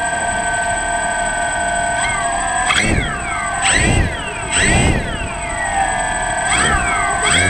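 DJI Phantom quadcopter's motors and propellers whining steadily while hovering low over the ground. Several times the pitch swoops up sharply and falls back as the motors speed up to hold position, each with a gust of prop wash.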